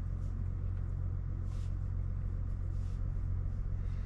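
A 3.0L Duramax inline-six turbodiesel idling steadily, a low even hum heard from inside the truck's cab.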